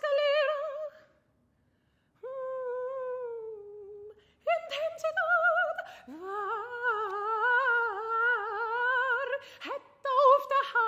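Solo female voice singing wordless held notes with wide vibrato, in short phrases with pauses between them. Past the middle, a long note scoops up from below and is held for about three seconds.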